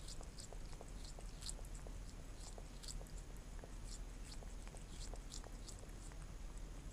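A cat licking insect jelly from a small plastic cup, its tongue making short wet smacks and clicks, about two to three a second.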